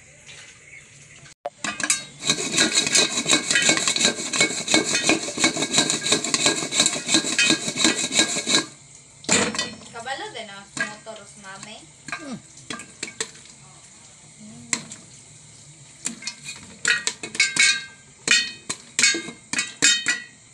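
Popcorn kernels popping in a pan under a metal lid: a dense, rapid volley of pops from about a second and a half in, thinning after about eight seconds to scattered pops.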